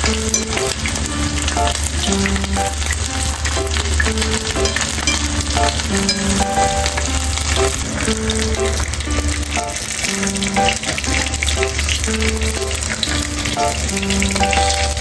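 Food frying in a pan, a steady sizzle and crackle of hot oil, under background music with a simple melody and bass line.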